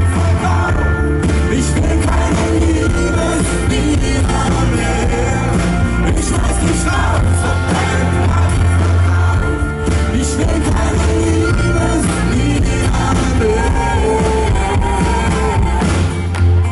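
Live pop-rock band music recorded from the audience, loud and heavy in the bass.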